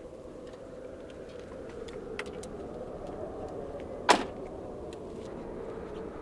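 A car door, on a first-generation Ford Focus sedan, slamming shut once about four seconds in, over a steady low hum.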